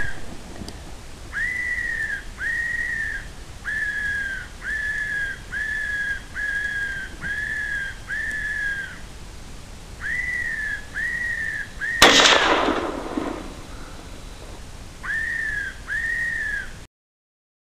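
Electronic predator caller (an old FoxPro Spitfire) playing a fox whistle call: a run of short, high whistled notes, each rising then easing down, about one every three-quarters of a second in groups with short pauses. About twelve seconds in a single loud rifle shot from a 6.5 Grendel AR rifle cuts through, ringing away over about a second, and the whistle notes start again afterwards.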